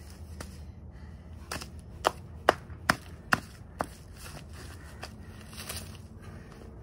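Hammer striking a paper workbook lying on brick pavers: a run of about seven sharp blows, roughly two a second, over the first four seconds.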